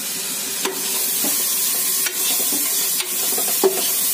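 Soaked chana dal sizzling in hot oil in an aluminium pressure cooker while a spoon stirs it, with a steady frying hiss. The spoon knocks and scrapes against the pot about five times, loudest near the end.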